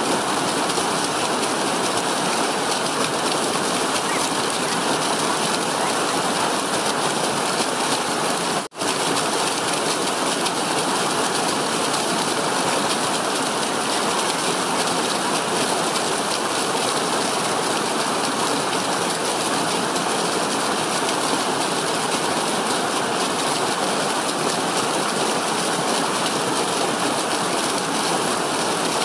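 Small stream rushing steadily down a short rocky cascade, with a split-second gap in the sound about nine seconds in.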